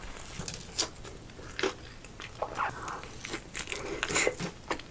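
A person biting into and chewing a decorated Christmas doughnut, an irregular scatter of short, soft crunches and mouth clicks.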